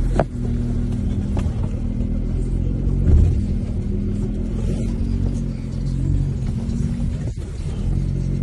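Off-road vehicle's engine running at low revs as it crawls up a rocky trail, heard from inside the cab, with a steady low rumble and a thud about three seconds in.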